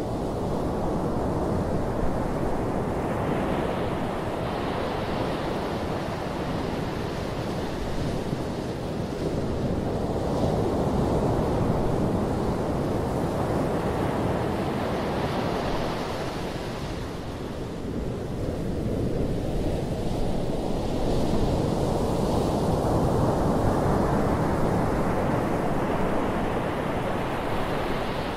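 Low surf breaking and washing up a flat sandy beach. The wash rises and falls in slow swells several seconds apart.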